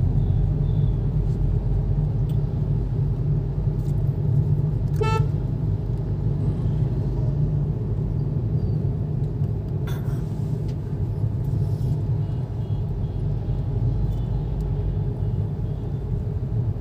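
Steady low road and engine rumble inside the cabin of a Hyundai Grand i10 Nios driving on a city road. A vehicle horn gives one short toot about five seconds in.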